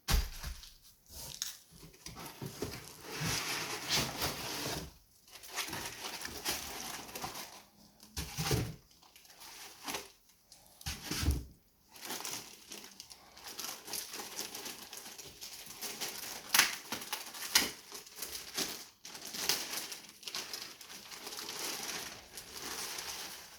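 Plastic and foam packaging rustling and crinkling as it is handled and pulled away from a boxed transceiver, with a few dull thumps.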